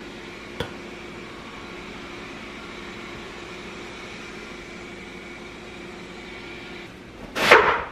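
Steady machine hum with a constant tone, like a household appliance or fan running, with a small click about half a second in. The hum stops near the end, and a brief loud whoosh follows.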